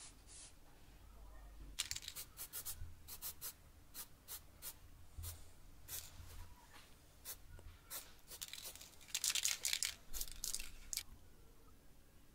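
Aerosol spray paint can hissing in many short bursts, with a longer run of bursts late on before it stops.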